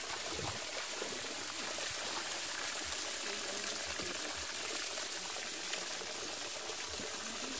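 A thin stream of water pouring steadily over the edge of an earthen bank and splashing down onto wet mud below.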